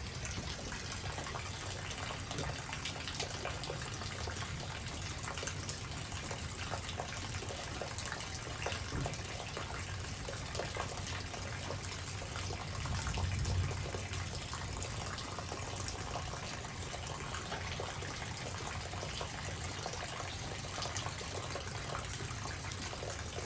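Steady wash of light rain and running water after a thunderstorm, with faint patter throughout. A brief low rumble swells about 13 seconds in.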